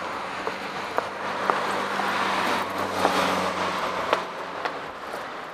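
Street traffic with a car passing, its engine hum and tyre noise growing louder toward the middle and fading again, over footsteps clicking on pavement about twice a second.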